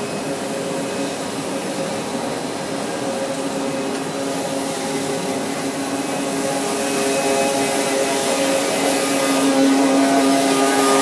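PE/PP film pelletizing line running: a steady machine hum with a couple of held whining tones over a hiss. It gets louder in the second half, near the strand pelletizer that chops the cooled plastic strands into pellets.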